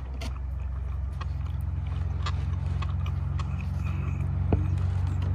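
A motor's steady low drone that slowly grows louder, with a few faint clicks of someone chewing food over it.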